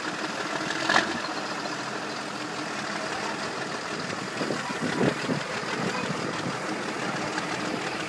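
Crawler bulldozer's diesel engine idling steadily, with a sharp knock about a second in and a few louder bumps around five seconds in.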